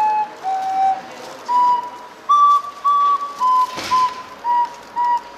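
A simple, slow tune played on a recorder, one clear note at a time, with a brief rustle about four seconds in.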